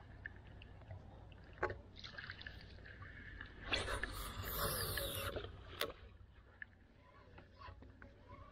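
Quiet boat-deck handling sounds: a few light knocks, and a rustle lasting over a second from about four seconds in as a hand and arm brush close to the microphone, over a faint steady low hum.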